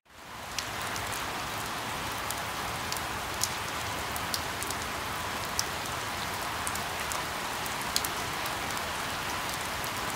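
Steady rain falling, a constant hiss with sharp ticks of single drops now and then. It fades in quickly at the start.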